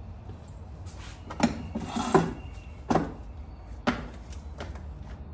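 Hardware being handled: four sharp knocks about a second apart, with a short rattle around the second, as light-fixture mounting brackets are taken off to be turned around. A low steady hum runs underneath.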